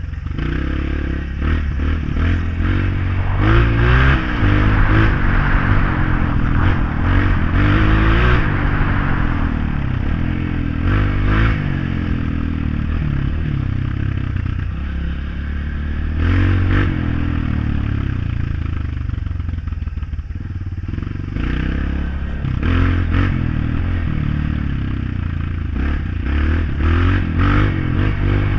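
Honda CRF off-road motorcycle engine running and revving up and down, the pitch rising and falling again and again, with clattering and scraping as the bike rides over a rough forest road.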